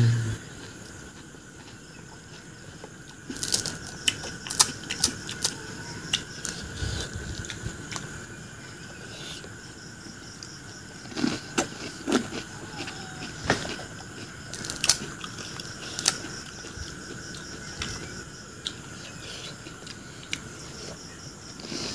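Hollow pani puri shells cracking and being chewed, with scattered sharp crunches and clicks in two spells, a few seconds in and around the middle. A faint steady high whine runs underneath.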